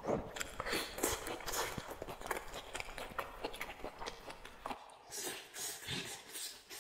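Close-miked chewing and biting: a person chewing a mouthful of food with many short mouth clicks, then biting into a piece of pan-fried steak near the end.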